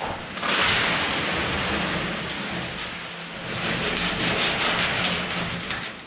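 Wet concrete mix pouring and sliding out of a tipped wheelbarrow onto the slab, a gritty, rain-like hiss that swells twice and fades near the end.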